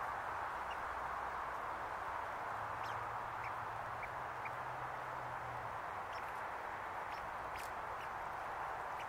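A steady, even hiss with a few faint, scattered clicks as an American red squirrel gnaws scales off a conifer cone.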